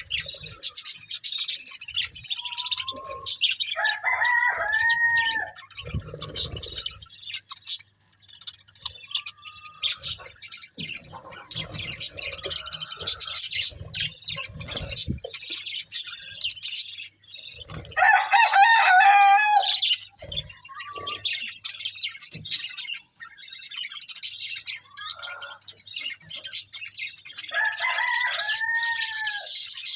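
Budgerigars chirping and chattering continuously in high, rapid twitters. A louder warbling burst comes just past the middle, and two longer, arching calls sound about four seconds in and again near the end.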